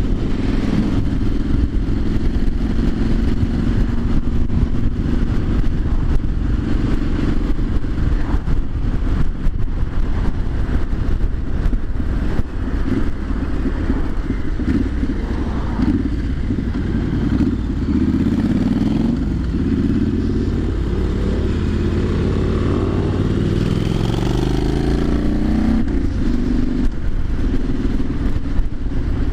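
Triumph Street Scrambler 900's parallel-twin engine running while the motorcycle is ridden. Its note climbs steadily for several seconds in the second half, then drops back near the end.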